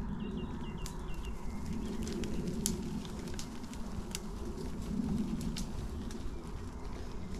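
A small bird calling a quick run of about six short, high chirps in the first second or so, over a steady low outdoor rumble with a few scattered light clicks.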